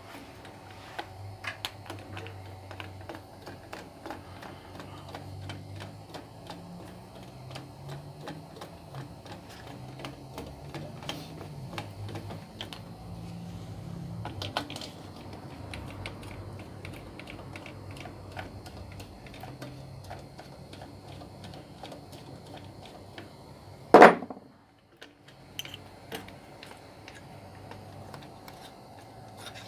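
Irregular small metallic clicks and taps of hand tools and loose metal parts being handled while an electric pump motor is taken apart. About 24 seconds in there is one sharp, much louder knock, and the sound drops away for about a second right after it.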